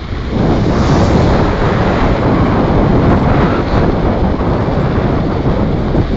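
Strong wind buffeting the microphone: a loud, unbroken rush of noise without any clear tone.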